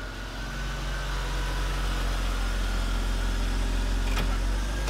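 A 1998 BMW E39 528i Touring's straight-six engine running steadily as the car pulls up and stops, with a brief sharp sound about four seconds in.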